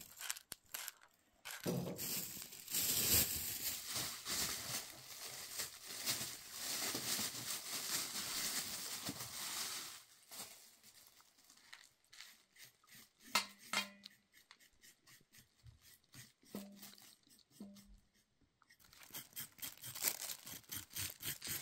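Thin plastic bag rustling and crinkling for several seconds, then a few light clicks, and near the end a knife scraping the skin off raw carrots in quick repeated strokes.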